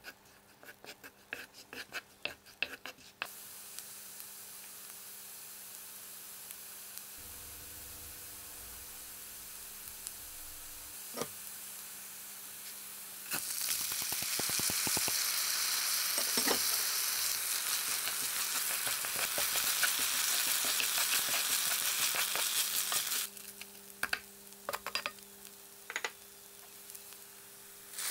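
Minced garlic sizzling in butter and oil in a cast-iron pan, first with light clicks from a wooden spatula stirring it. About thirteen seconds in, wet rice is tipped into the hot fat and the sizzle grows much louder. Around twenty-three seconds it drops back, and a few spatula clicks follow as the rice is spread.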